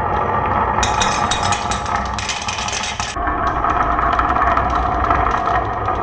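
Marbles rolling along a wooden marble run, a steady rolling rumble dotted with small clicks as they run over the track pieces. From about one second in, a brighter, hissier rolling with more clicks joins in, then cuts off suddenly near the three-second mark.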